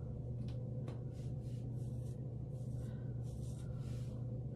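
Several short strokes of a small edge brush through the hair along the hairline, coming every half second or so, over a steady low hum.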